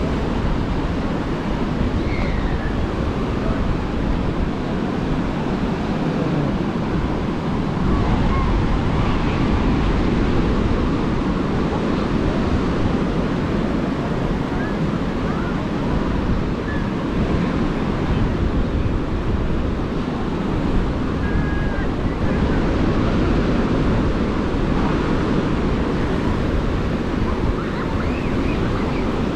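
Surf washing onto a sandy beach: a steady rush of breaking waves, with faint scattered voices.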